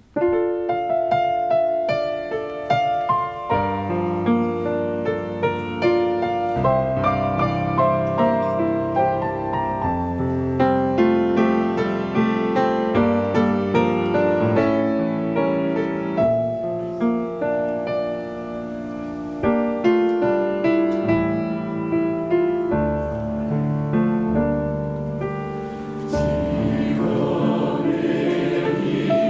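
Choir singing a hymn with piano accompaniment.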